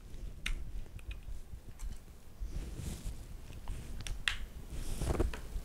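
Several sharp, spread-out clicks and light knocks of plastic and metal as a detachable-blade pet grooming clipper and its snap-on comb guard are handled. The clipper is not running.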